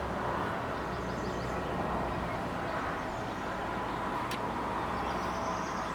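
Steady background hum of road traffic, with faint, high bird chirps over it now and then and a single click a little past the middle.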